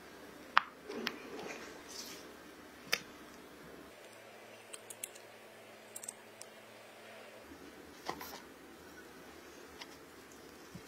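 Quiet mixing sounds: a silicone spatula stirring and scraping in a glass mixing bowl, with soft squishing of batter and butter. A few sharp clicks of the spatula against the glass come about half a second in, just before three seconds and around eight seconds.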